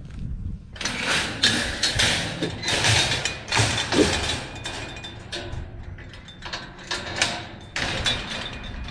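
Steel expanded-metal mower ramp being lifted and swung shut by hand: a string of metal rattles and clanks over several seconds, with a low engine hum underneath.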